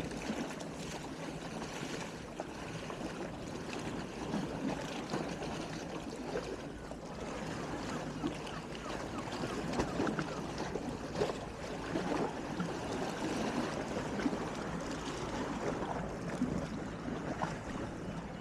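Small waves lapping and sloshing at the water's edge on a calm sea, with many small irregular splashes and clicks.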